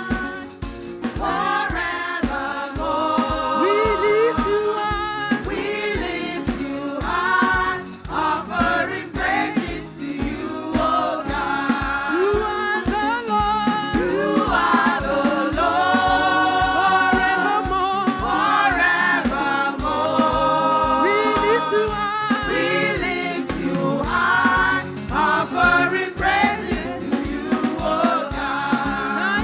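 Gospel praise and worship music: voices singing together over a band, with a steady drum beat and a shaker or rattle.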